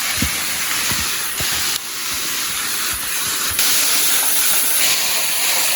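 Rushing water of a bush creek cascade: a steady hiss of falling, tumbling water, growing louder a little past halfway.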